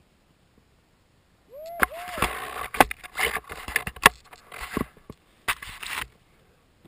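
Camera handling noise: a cluster of knocks, scrapes and rustling lasting about four seconds as the camera is tipped down toward the snow and back, with two short swooping tones near the start.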